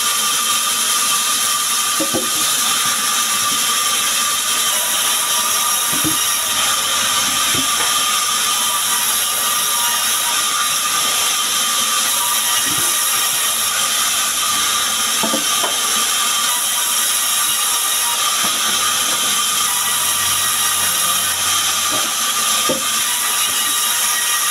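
Sawmill band saw running with a steady high whine and hiss as it saws small sengon logs into boards. A few short knocks are heard along the way.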